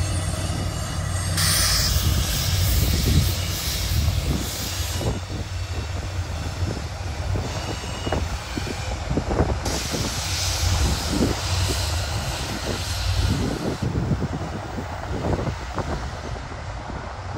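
Heavy freight train of loaded steel-coil cars rolling past on an upgrade: a steady low diesel locomotive drone, with a rapid run of knocks and clacks from the car wheels on the rail and a hiss that swells and fades.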